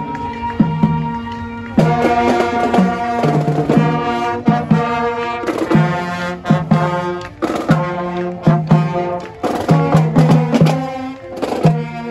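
Marching band playing as it passes: saxophones, trombones, trumpets and sousaphone over drums, with the low brass sounding short repeated notes.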